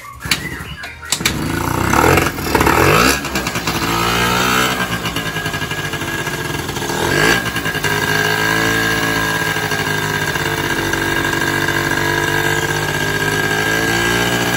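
Sanex 50cc two-stroke scooter engine, freshly rebuilt with new crankshaft bearings and seals, catching about a second in, revving up and down twice, then settling into a steady idle.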